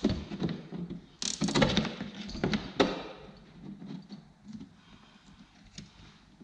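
Nylon zip ties being pulled tight, a rasping ratchet sound for about a second and a half starting a second in and ending in a sharp click, followed by fainter handling clicks against the plastic crate.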